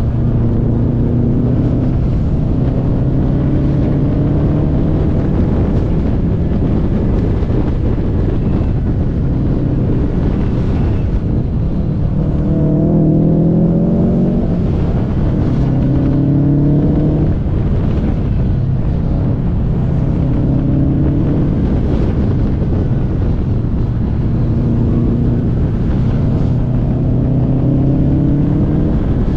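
Car engine under hard driving, pulling up in pitch and dropping back again and again with gear changes and lifts, over steady road and wind noise.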